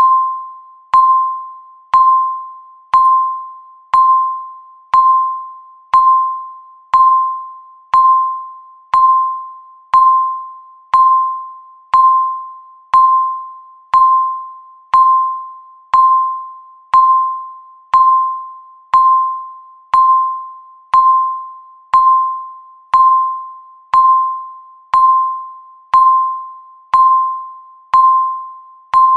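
Countdown timer tick sound effect: a short ringing ping, the same pitch each time, struck once every second and fading away before the next.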